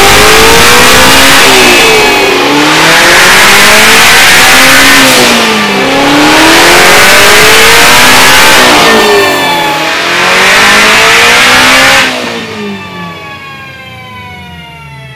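Twin-turbocharged 5.2-litre flat-plane-crank V8 of a 2019 Shelby GT350 at wide-open throttle on a chassis dyno, running on E85. The revs climb hard, dip briefly three times, and climb again each time, like gear changes. About 12 s in the throttle closes, the sound drops away, and the engine note falls steadily as the car coasts down on the rollers.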